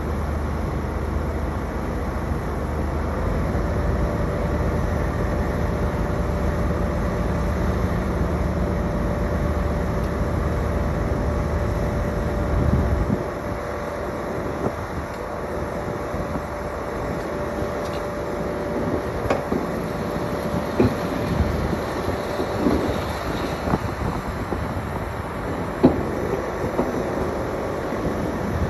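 Diesel tipper truck running while its body is raised hydraulically to tip the load, with a steady whine over a deep engine rumble. The rumble drops away about halfway through while the whine goes on, and scattered knocks and clatters follow as the load slides out.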